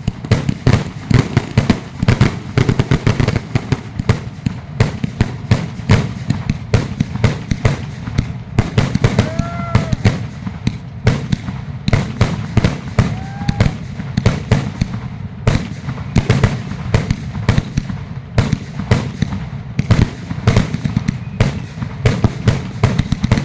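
Dense, continuous barrage of fireworks: many sharp bangs and crackles every second, with a few brief whistles rising and falling in pitch.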